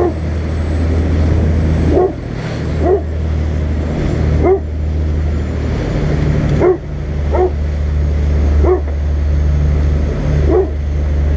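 Fishing boat's engine droning steadily under way, with water rushing and spraying along the hull and a few knocks about two seconds apart as it meets the waves. Short, squeaky rising-and-falling sounds come every second or two.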